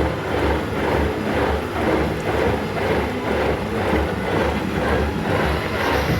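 Lathe running while it cuts grooves into a ship's starter gear, a steady machine noise that pulses about twice a second.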